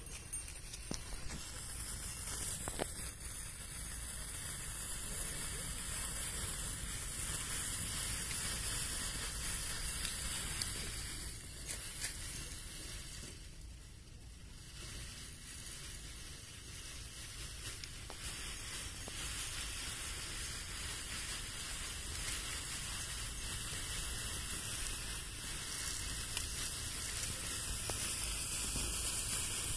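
Stack of four large snake tablets (black snake fireworks) burning with a steady sizzling hiss as the ash snake grows.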